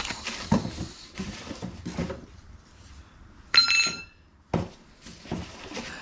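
Bike rack parts being handled and unpacked from a cardboard box: scattered knocks and rustling, with one sharp, ringing metallic clink about three and a half seconds in and another knock a second later.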